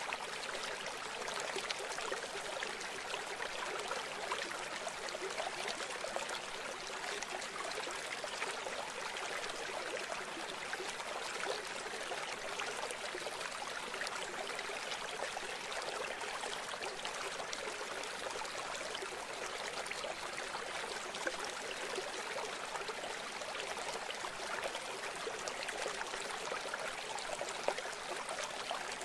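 Steady sound of running water, like a flowing stream, continuing evenly without change.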